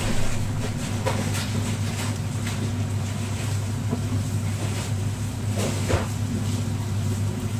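Steady low hum, with a few short scrapes and taps of a wooden spatula against a frying pan as diced vegetables are stirred.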